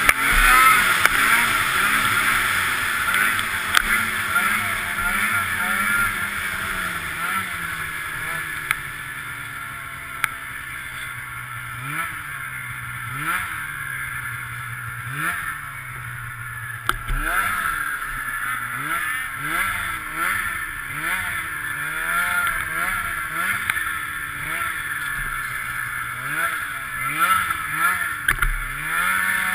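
Snowmobile engine running under load through snow, held fairly steady at first, then dropping in revs about a third of the way in. Through the second half it revs up and falls back in quick throttle blips about once a second, over a steady rushing noise.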